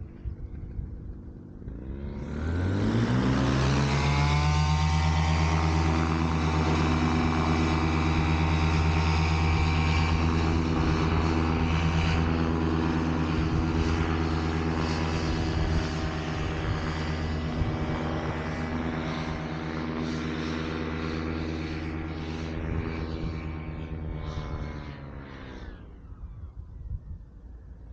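Paramotor's Atom 80 single-cylinder two-stroke engine and propeller running up from idle about two seconds in, holding high steady revs for about twenty seconds, then throttled back and dropping away near the end.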